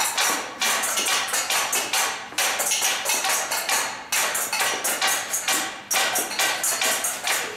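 Kitchen utensils played as percussion: stainless steel colanders and mixing bowls struck with sticks in a quick, even rhythm of sharp metallic strikes, several a second.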